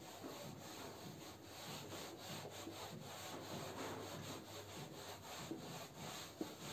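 A whiteboard duster rubbing back and forth across a whiteboard in quick repeated strokes, erasing it; faint.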